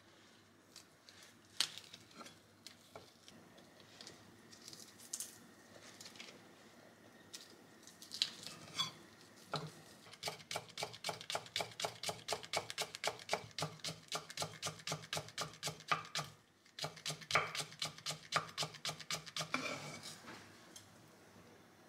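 Kitchen knife finely shredding the white part of a Japanese long onion on a hiba-wood cutting board: fast, even strokes about four or five a second, with a brief break partway through. Before that come a few seconds of light, scattered taps.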